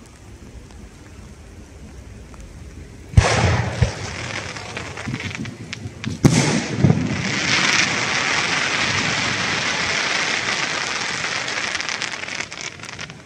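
Aerial firework shells bursting: a sharp bang about three seconds in, followed by crackling, and a second bang about three seconds later. A dense crackling hiss then runs for about five seconds and dies away near the end.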